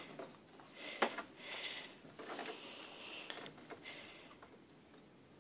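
Bloodhound puppy scrabbling at a carpeted cat tree: several bursts of scratchy rustling, with a single sharp knock about a second in.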